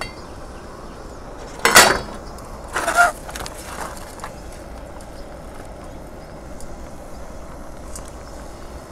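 Lid of a small metal camping pot clanking twice, as it is lifted off about two seconds in and set down on a metal plate about a second later. This is followed by a faint, steady pour of boiling water into a freeze-dried meal pouch.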